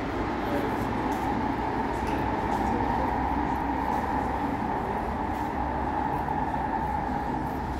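Underground Cologne U-Bahn train running through the tunnel beyond the platform: a steady rumble with a high, even hum over it, easing off near the end.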